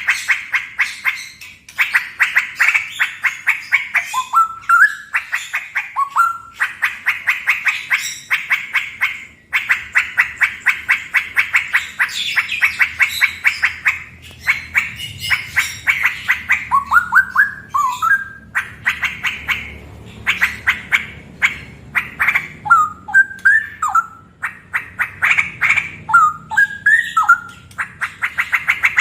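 Male straw-headed bulbul (cucak rowo) singing loudly in ropel style. Runs of rapid, stuttering repeated notes alternate with short warbled phrases that glide up and down in pitch.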